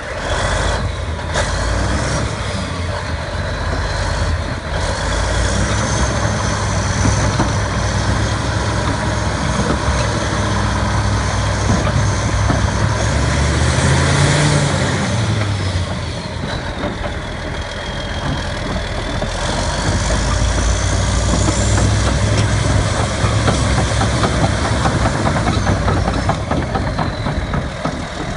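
Komatsu D375A bulldozer's large turbocharged diesel engine running steadily, its revs rising briefly about halfway through. A high whine glides up and down several times over the engine.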